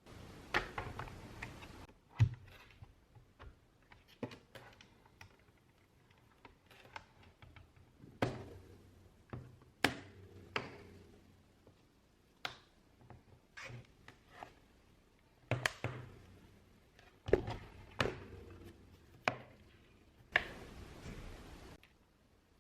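Irregular taps, clicks and light knocks of objects being handled on a hard surface, with two short stretches of rustling noise, one at the start and one near the end.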